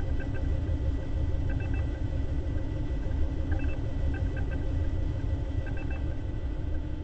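A steady low rumble of spaceship-interior ambience, with faint short electronic beeps in small groups every second or so.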